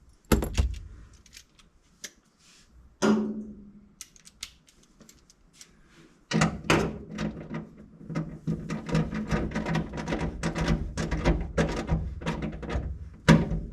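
A few separate knocks of metal tools, then from about six seconds in a wrench ratcheting in quick, uneven clicks as a seatbelt anchor bolt is tightened.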